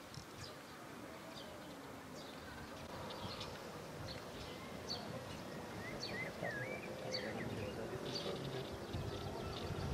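Small birds chirping repeatedly, with a short warbled phrase about six seconds in, over low rumbling background noise; a steady low hum joins about halfway through.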